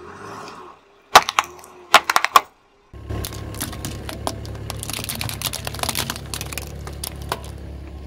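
A car tyre crushing small plastic objects on asphalt. Sharp plastic cracks come about a second in and again around two seconds in. Then a steady low rumble from the rolling car sets in, with many small crackles and snaps.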